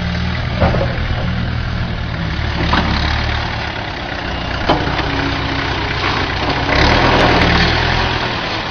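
Tractor engine running steadily at idle, with three sharp knocks spread through the first five seconds and a short louder spell about seven seconds in.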